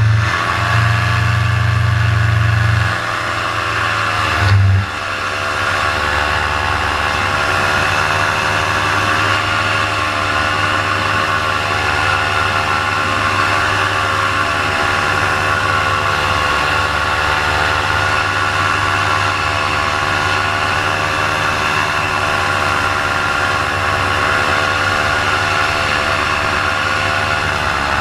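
Paramotor engine and propeller running steadily at high throttle, its pitch wavering slightly and dipping briefly a few times, the engine beginning to lose power and bog. A heavy low rumble lies under it for the first five seconds or so.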